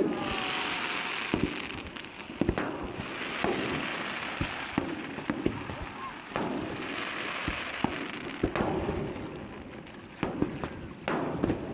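Aerial fireworks display: shells bursting in many sharp bangs throughout, with stretches of crackling, hissing glitter effects between them.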